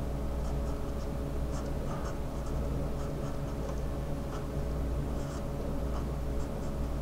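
Sharpie marker writing on paper: many short, scratchy strokes as letters and bonds are drawn, over a steady low hum.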